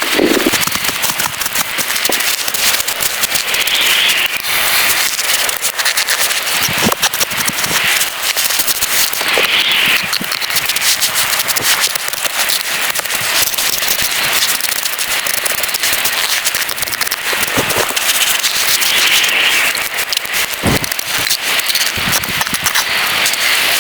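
Heavy rain pattering densely on a tent, a steady crackling patter with a few louder drops or knocks now and then.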